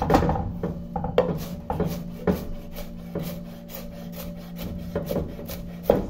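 Chef's knife rapidly chopping onion on a wooden board: a fast, even run of knocks, about four to five a second, with a louder stroke near the end.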